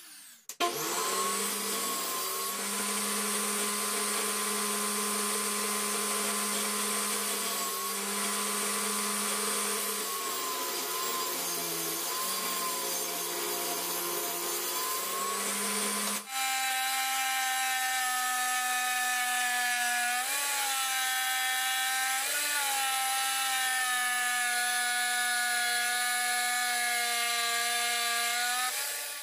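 Electric woodworking power saw running with a steady motor whine as it cuts wood, the pitch wavering briefly a few times under load. About halfway through there is an abrupt change to a second run at a slightly higher pitch.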